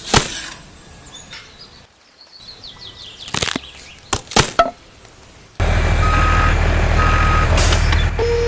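A few sharp knocks, then a heavy vehicle's engine starts running suddenly and loudly, with two short reversing beeps.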